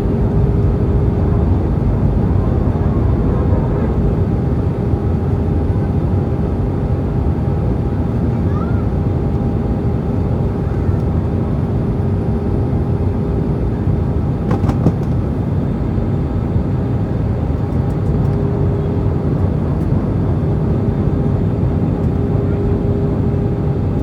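Steady cabin noise of an Airbus A320 on its descent: its IAE V2500 turbofan engines and rushing airflow, with a steady droning hum. A short click a little past halfway.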